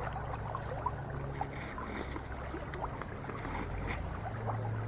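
Steady rush of flowing creek water, with faint scattered ticks over it.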